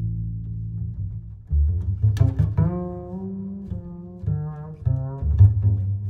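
Background instrumental music: low-pitched notes that change every half second or so.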